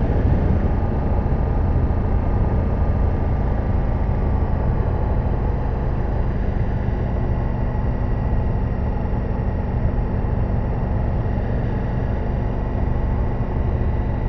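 Ducati Multistrada V4S's V4 engine running steadily, an even low hum with no change in speed.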